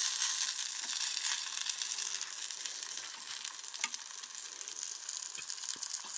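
Pink salmon pieces sizzling in hot oil in a frying pan, a steady crackling hiss. A few light clicks of the utensil against the pan come near the end as the pieces are prodded and turned.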